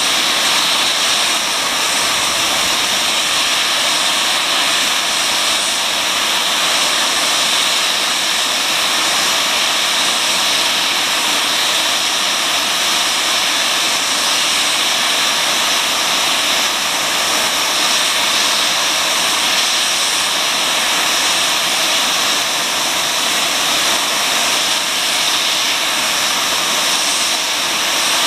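Safety valves of S15 4-6-0 steam locomotive No 847 blowing off: a loud, steady, high hiss of escaping steam that carries on without a break. The valves lift when the boiler reaches full working pressure.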